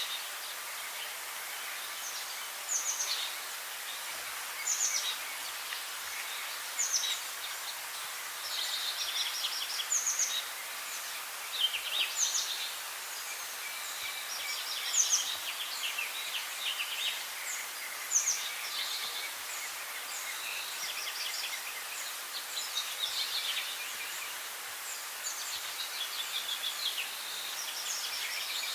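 Songbirds singing, with short high chirping phrases repeating every second or two and sometimes overlapping, over a steady background hiss.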